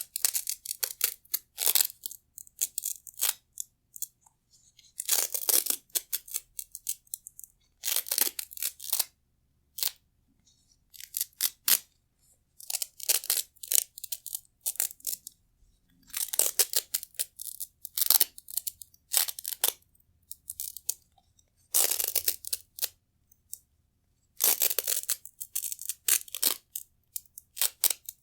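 Velcro hook-and-loop straps being peeled apart and pressed together in a dozen or so crunchy, crackling rips, each lasting about a second, with short pauses between.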